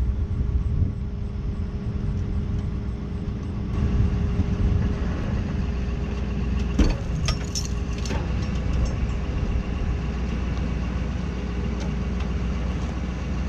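Tow truck engine running steadily under load as its winch drags an SUV up out of a ditch, with a constant low rumble and hum and a few sharp knocks about halfway through.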